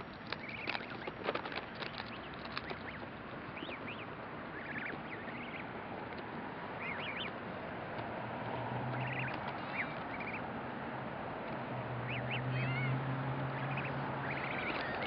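A flock of goslings peeping: short, high whistled calls scattered through, with a few sharp clicks near the start. A low steady hum comes in about halfway.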